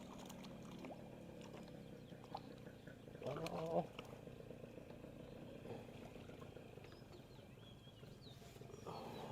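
Faint outdoor background with a few small clicks. A short, low vocal sound about three seconds in, probably a muttered human voice. Faint high chirps later on.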